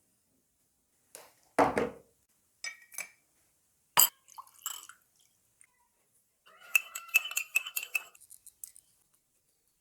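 Small metal parts clinking and knocking against hard surfaces: a few separate knocks, then a quick run of light clinks near the end.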